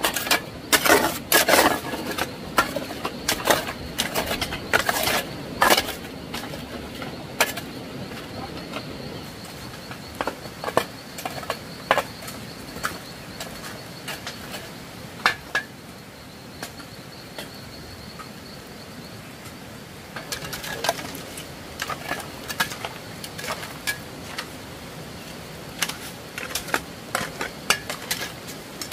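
Kitchenware clinking and knocking irregularly, busiest in the first six seconds and the last eight, with a faint steady high whine through the middle.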